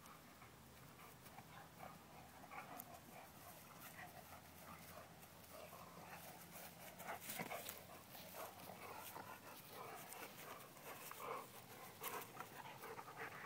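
Two Doberman puppies play-fighting, heard faintly: dog vocal noises and scuffling that get a little louder in the second half.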